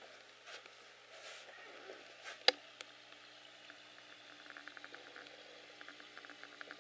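One sharp click about two and a half seconds in, amid faint rustling and a run of light ticks in the second half, over a quiet steady hum.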